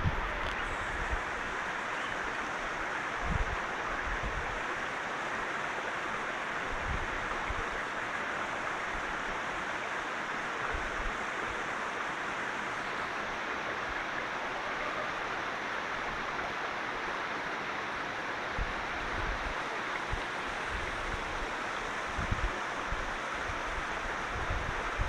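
Mountain stream running over rocks: a steady rushing hiss, with a few brief low buffets of wind on the microphone.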